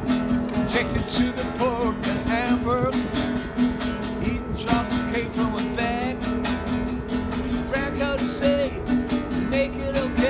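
Acoustic guitar strummed steadily in an even rhythm. A man's wordless singing comes in a few times over the strumming.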